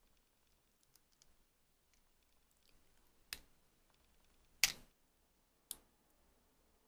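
Three sharp little clicks, the second loudest, with a few fainter ticks between: metal tweezer tips tapping and catching on a miniature hard egg cup made from cured gel nail polish while its peel-off lid is lifted.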